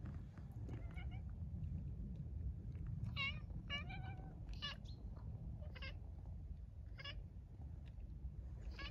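A cat meowing repeatedly: about seven short meows with wavering pitch, several in quick succession in the middle, over a steady low rumble.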